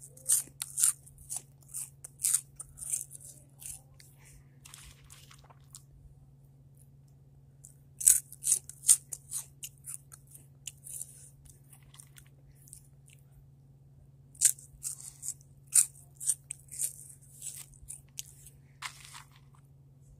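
Crunchy hot chips being bitten and chewed close to the microphone, the crunching coming in three bouts with short pauses between them. A steady low hum runs underneath.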